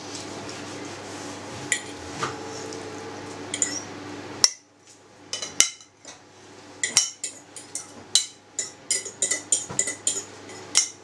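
A metal spoon scraping and clinking against a ceramic bowl as a soft filling is scraped out: a string of sharp clinks, coming thick and fast in the second half. A steady low hum underlies the first half and cuts off suddenly.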